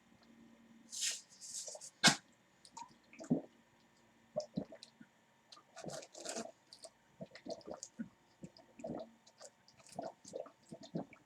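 A person drinking water through a reusable bottle's spout: irregular sucking, swallowing and gulping sounds, with a sharp click about two seconds in.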